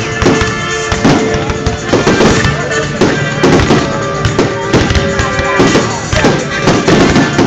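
Aerial firework shells bursting in quick succession, a bang every half second to a second, over loud music.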